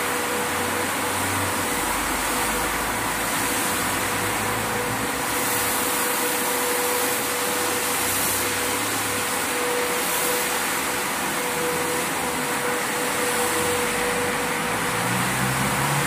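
Maxis twin-motor manual carpet washing machine running steadily, its two rotating brush heads scrubbing a soapy rug. It makes a continuous motor hum with a steady whine.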